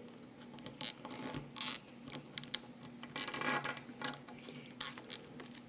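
Small metal rivet parts and a leather strap handled by fingers while a rivet is pushed through punched holes: light irregular clicks, scrapes and rustles, busiest about three and a half seconds in.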